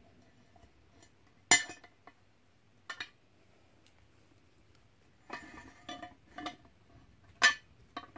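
Metal parts of a Lowery embroidery stand clinking and knocking as they are handled and screwed together. Two sharp, loud clinks come about a second and a half in and near the end, with a few smaller clinks and a quick cluster of them between.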